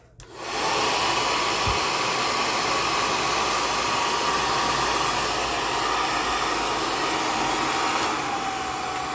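Taiff hair dryer switched on and running steadily on test, a rush of air with a steady whine, after its broken motor mount was repaired; it runs without the noise it made after being dropped. Near the end the level and whine step down a little.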